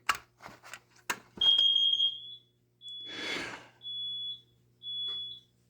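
A few sharp clicks, then a fire alarm panel's sounder beeping a single high tone: one longer beep, then shorter beeps about once a second. The panel is signalling an alarm or trouble condition that is waiting to be acknowledged.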